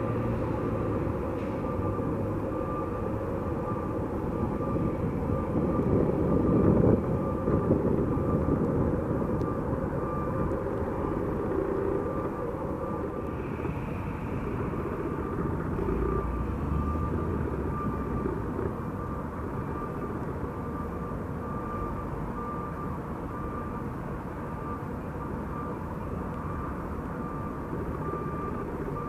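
Boeing 737-700 BBJ's CFM56 jet engines rumbling as the jet slows down and taxis after landing, swelling about six seconds in and then easing off. A vehicle's reversing alarm beeps steadily alongside.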